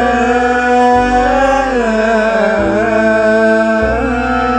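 Music: an Arabic pop song's backing, with a long wavering, ornamented melody line held over a bass that steps to a new note every second or so.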